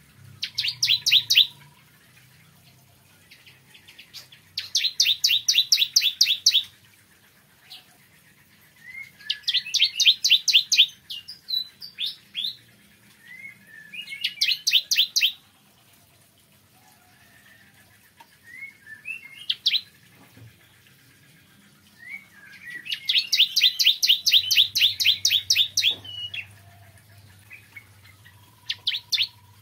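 Bar-winged prinia (ciblek kristal) singing: about five loud bursts of rapid, evenly repeated high notes, each one to two seconds long, with short rising chips between them.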